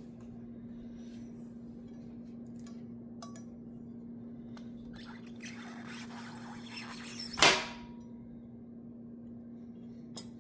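Gym chalk being crushed by hand. A few faint crumbles lead into a couple of seconds of gritty rustling, then one loud, sharp crunch about seven seconds in.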